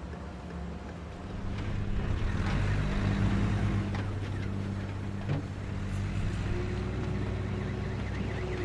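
Motor vehicle engine running with a steady low hum, getting louder about a second and a half in, as in street traffic.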